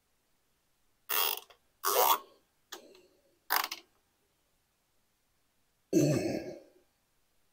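Plastic housing of a Honda EU3000is inverter generator being handled during reassembly: four short scraping clicks about a second apart, then a louder dull thump with a rustle about six seconds in.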